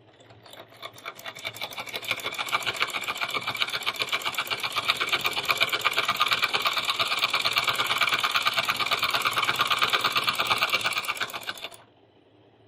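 Foot-treadle sewing machine running, a rapid rhythmic stitching clatter. It picks up speed over the first couple of seconds, runs steadily, then stops abruptly near the end.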